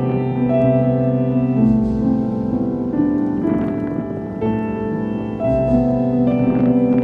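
Background music: slow piano chords, each held for a second or two before the next.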